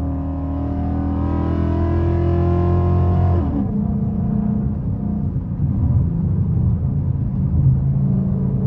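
Ford Mustang S197's 5.0 V8 heard from inside the cabin, pulling with its pitch climbing slowly for about three and a half seconds. Then the pitch falls suddenly and the engine carries on at a lower, steady note while cruising.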